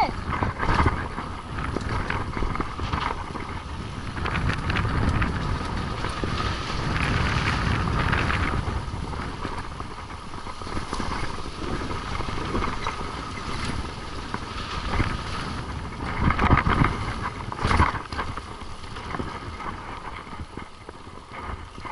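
Wind rushing over the microphone of a camera on a moving mountain bike on a downhill dirt trail, with tyre noise on the dirt and the bike rattling over bumps; a few harder knocks about three-quarters of the way through.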